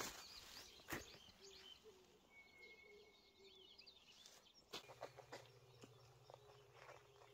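Faint outdoor birdsong: small birds chirping, with one held whistled note a couple of seconds in. Near the start come a couple of soft crunches of paws on dry straw. After about five seconds a low steady hum comes in with scattered small clicks.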